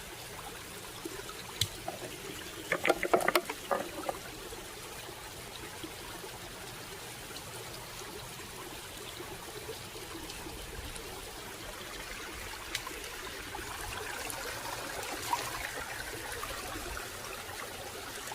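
Water trickling and running steadily. A cluster of sharp clicks and knocks sounds about two to four seconds in.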